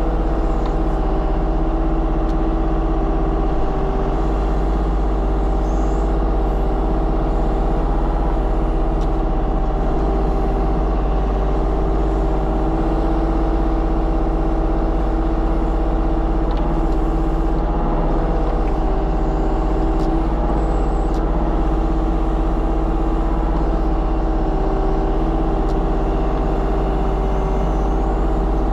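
Diesel engine of a compact construction machine running steadily at a constant speed, with a few faint clicks.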